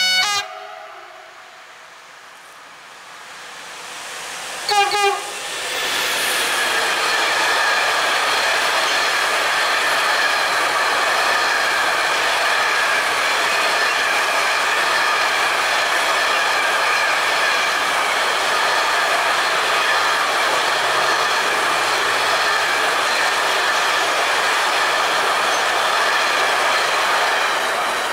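Electric freight train, an E186 Traxx locomotive hauling pocket wagons loaded with semitrailers, approaching and passing close. A brief horn warning sounds about five seconds in, then the train's steady wheel-and-rail noise runs for about twenty seconds and fades as the last wagons go by.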